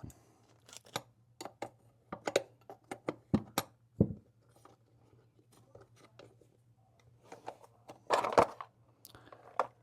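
Hands handling small parts and packaging: scattered light clicks, taps and rustles, with a louder clatter about eight seconds in and another short one near the end.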